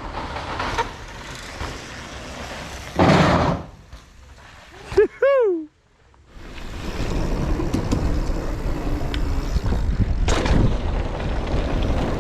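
Wind rush and tyre noise from a mountain bike riding a bike-park trail, with loud gusts or impacts about three seconds in and again near the end. About five seconds in there is a sharp click and a short pitched sound falling in pitch, then the sound cuts out briefly before the rolling noise resumes.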